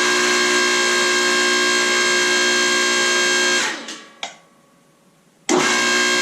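Electric motor and hydraulic pump of a home-built forging press running with a steady hum and whine. About three and a half seconds in it is switched off and winds down in pitch, a click follows, and about five and a half seconds in it is switched back on and runs at full speed again.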